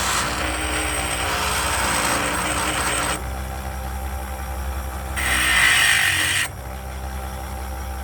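A power tool working on metal in spells: about three seconds of steady hissing noise, a quieter stretch, then a louder burst of about a second just past the five-second mark.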